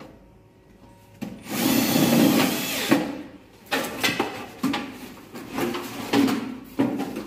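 A cordless drill runs once for about a second and a half at an exhaust fan motor's housing, starting about a second in. It is followed by a run of short rustles and knocks as the plastic-wrapped motor is handled.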